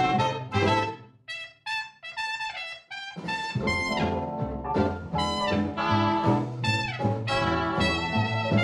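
Upbeat background music led by brass horns. About a second in it drops to a few light high notes, and the full band comes back about three seconds in.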